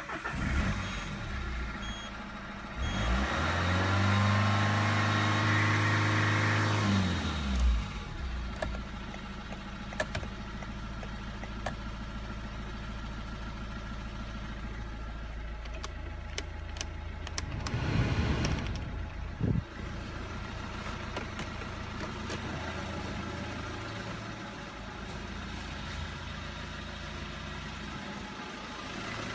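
Citroën Berlingo's 2.0 HDi RHY diesel engine idling, revved up and held for a few seconds about three seconds in, then revved briefly again at about eighteen seconds, settling back to a steady idle each time.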